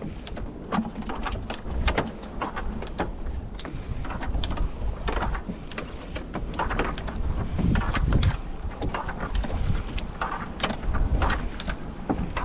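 Irregular knocks and clatter, many sharp strokes at uneven spacing, over a continuous low rumble.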